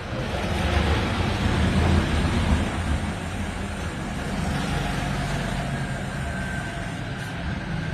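A motor running steadily: a low, even rumble with hiss above it.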